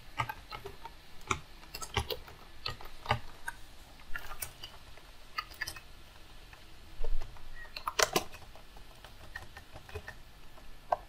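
Typing on a computer keyboard: irregular keystroke clicks, with a quicker, louder run of keys about seven to eight seconds in.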